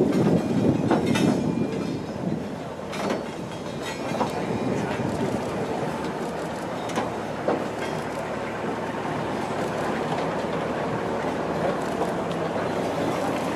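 Four-wheeled railway goods wagons, tank wagons among them, rolling slowly past on the track: a steady rumble of wheels on rail with a few sharp clanks and knocks, louder in the first couple of seconds.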